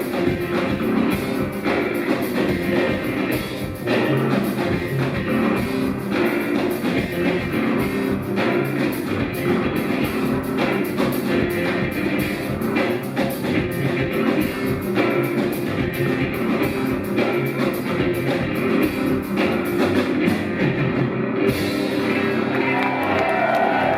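Live band playing a rock song through a long stretch without lyrics, the music running on at a steady level.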